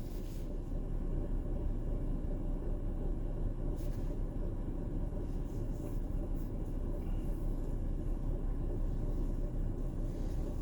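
Steady low rumble of a Chrysler Pacifica minivan idling, with a few faint clicks.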